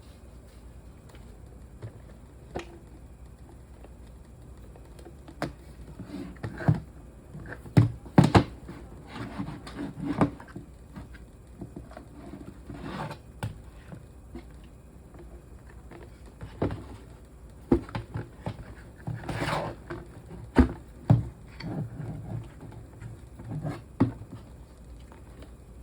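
Irregular knocks, clicks and scuffs of objects being handled, coming in two busy stretches, over a faint low steady hum.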